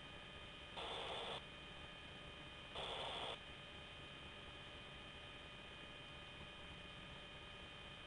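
Faint steady hum and hiss on a military helicopter's radio/intercom channel, broken twice by a short burst of static about two seconds apart, like the radio being keyed with no one speaking.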